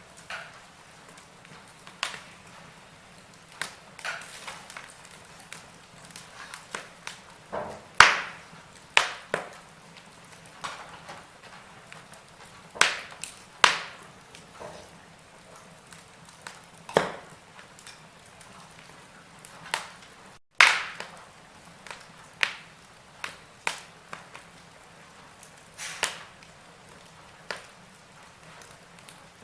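Wood fire crackling in a fireplace: irregular sharp pops and snaps, a loud crack about eight seconds in and another about twenty seconds in, over a quiet steady background.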